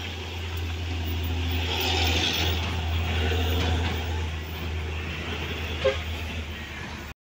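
Fuel tanker truck's diesel engine running as the truck passes close by, the sound swelling to its loudest about two seconds in and then easing off. The sound cuts off suddenly near the end.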